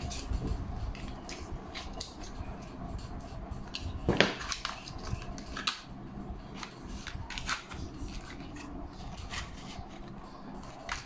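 Cardboard and craft tools being handled and worked: irregular small clicks, snips and scrapes, with a sharper knock about four seconds in, over a faint steady hum.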